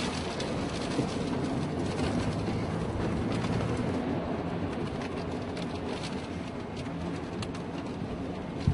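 Tornado winds rumbling steadily, with scattered small clicks and knocks and one sharper knock near the end.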